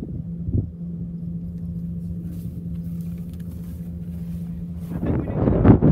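A steady low rumble with a constant low hum; about five seconds in, gusty wind starts buffeting the microphone loudly.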